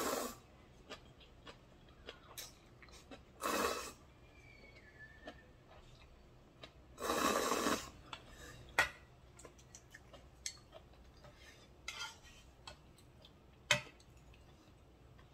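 Slurping ramen from a small bowl, three long slurps a few seconds apart, followed by short sharp clicks and clinks of chopsticks against the bowl and pot.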